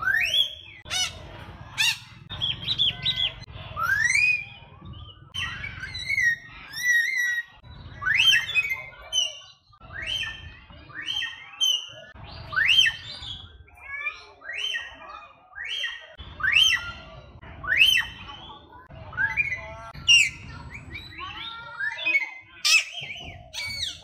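Caged birds calling: a steady series of short whistled calls that slide sharply upward, about one a second, with harsher squawks and chirps in between.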